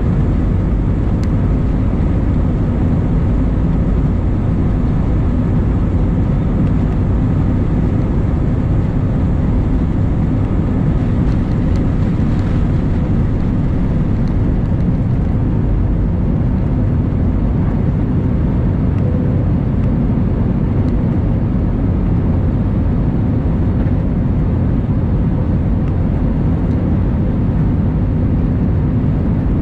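Jet airliner engines running at takeoff thrust, heard inside the cabin as a steady, loud rush through the takeoff roll, liftoff and initial climb.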